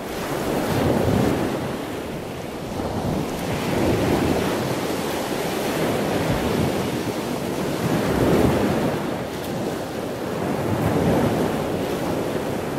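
Ocean surf breaking on a sandy beach and shoreline rocks, swelling and easing every three to four seconds, with wind on the microphone.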